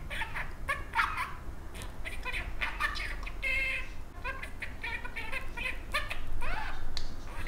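Lutino budgerigar chattering in a rapid run of clicks and short whistled notes, mimicking Tamil words such as "Yellow-amma" and "Ammanra chellakutty" (mother's little darling).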